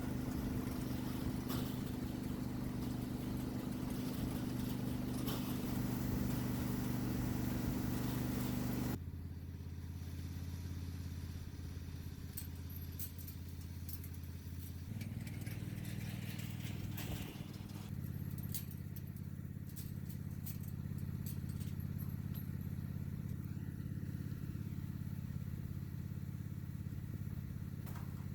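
An engine running steadily, its pitch and level changing abruptly a few times.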